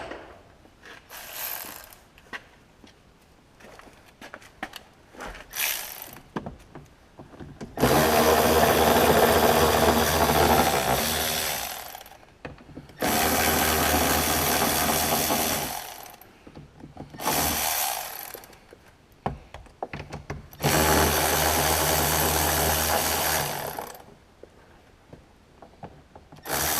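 A power driver spinning a 10 mm socket to back out the door mirror's mounting bolts, running in three bursts of three to four seconds each, with clicks and handling sounds of the tool and socket in between.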